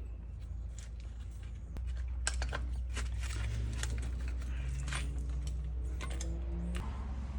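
Light metallic clicks and clinks of small starter parts being handled and fitted by hand. They come in a scatter from about two seconds in, over a steady low hum.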